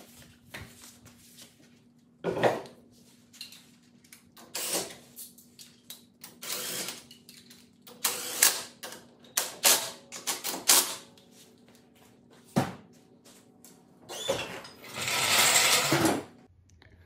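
A wheel and tyre being fitted to a pickup's front hub: irregular clicks, clanks and knocks of metal parts and lug nuts going on, with a longer, louder rattling burst of noise near the end.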